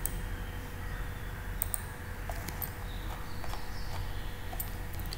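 Low steady hum with a faint thin tone, and a few scattered short clicks.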